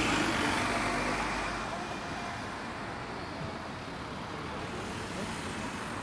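City street traffic: cars running past in a steady wash of road noise, louder at first and easing off over the first couple of seconds.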